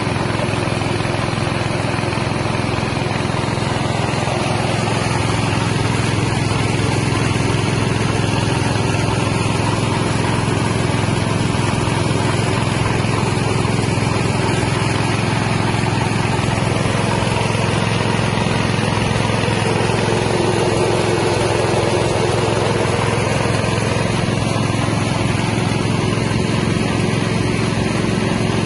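Small engine of a mini rice milling machine running steadily at constant speed, driving the huller as it mills paddy into rice.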